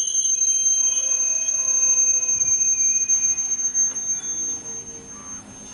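Steel wheels of passing passenger coaches squealing on a curve: several steady high-pitched tones over the low rumble of the train, fading near the end.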